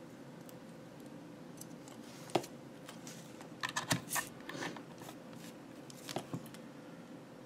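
Test-lead grabber clips and leads being handled and clipped on by hand: a sharp click about two seconds in, a cluster of clicks and rustling around four seconds, and a couple more clicks near six seconds, over a faint steady hum.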